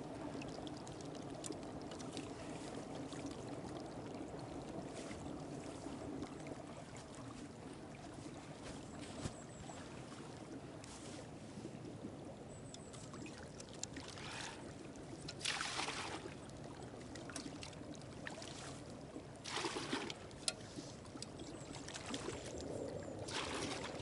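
Open, unfrozen creek running steadily, with water being scooped into a camping pot: a few louder splashing and pouring sounds about midway, again a little later, and near the end.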